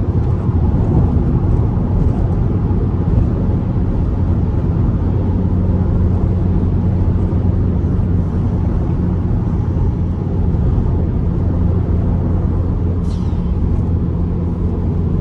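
Car engine and road noise while cruising at steady speed: a constant low drone.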